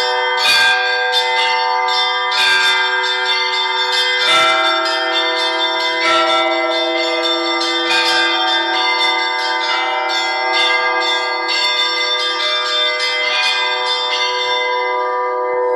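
Orthodox church bells being rung by hand: quick, repeated strikes on small high bells over the sustained ring of larger bells, with a lower bell sounding from about four seconds in.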